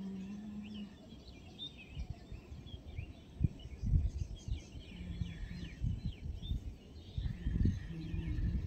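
Many small birds chirping, with gusts of wind buffeting the microphone.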